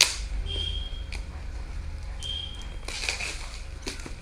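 Packaging being handled and pulled open to unwrap a book: a sharp click at the start, two short high squeaks, then rustling near the end.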